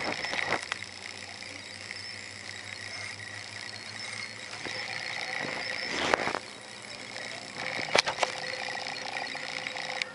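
A drinking glass being moved and set down on the floor: sharp knocks near the start, about six seconds in, and twice close together about eight seconds in, over a steady background hiss.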